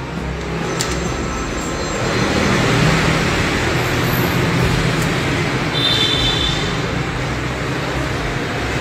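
Steady road traffic noise with a low engine hum, swelling slightly a couple of seconds in. There is a single click about a second in and a brief high beep around six seconds.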